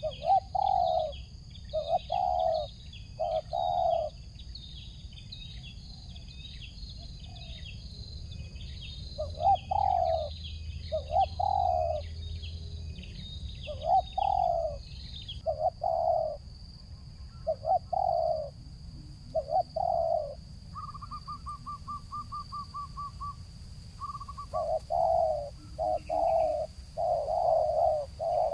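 Spotted dove cooing again and again in short phrases of two or three low notes. Through the first half, smaller birds chirp higher up. A steady high whine runs underneath, and a quick rattling trill comes a little past the middle.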